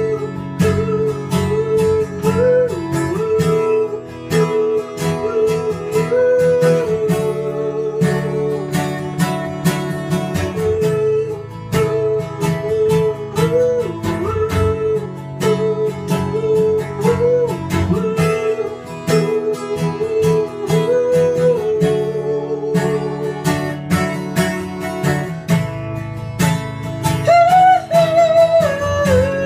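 Acoustic guitar strummed steadily while a man sings a long wordless melody over it, his voice climbing higher near the end.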